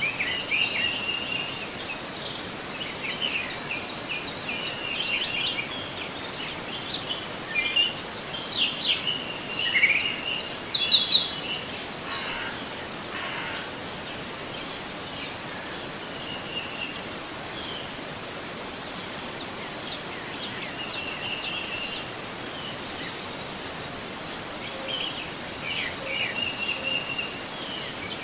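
River water flowing steadily, with songbirds chirping and singing over it, busiest in the first dozen seconds and again near the end.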